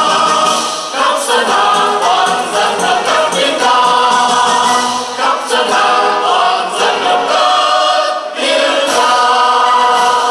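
Several voices singing a song together into microphones, amplified through the hall's sound system.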